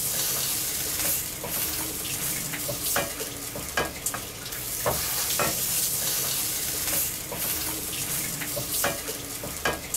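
Butter sizzling in a hot pan as split pav buns are pressed into it by hand to toast, a steady hiss with scattered sharp clicks.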